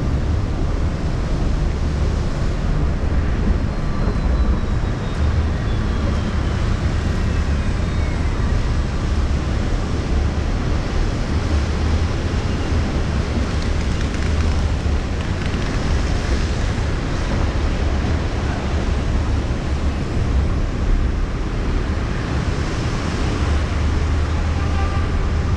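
Steady wind rumble on the microphone of a car-mounted GoPro, over the noise of the car moving through street traffic. A faint whistle falls in pitch about four seconds in.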